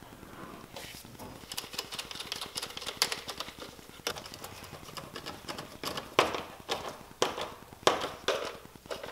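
Gloved hands fitting an intake inlet hose and its hose clamps onto the throttle body: a steady run of small clicks, rubbing and rustling, with several sharper clacks in the second half.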